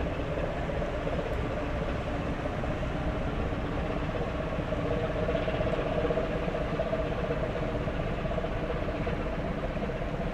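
Steady low rumble and multi-tone hum from a large bulk carrier's engine and machinery as the ship sails past; the hum grows a little stronger around the middle.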